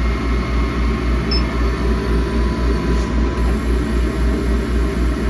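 Laser cutter's machinery running with a steady low hum that throbs quickly and evenly, about five pulses a second.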